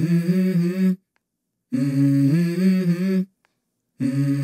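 Intro jingle of a voice humming a short melody in phrases about a second and a half long, stepping between a few notes, with brief silent pauses between phrases.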